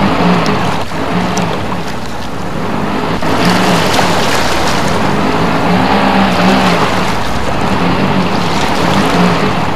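Car engine running with its wheels spinning in deep mud and water, a low engine drone under a continuous hiss of churned, sloshing slurry; the car is stuck. The hiss grows brighter about three seconds in.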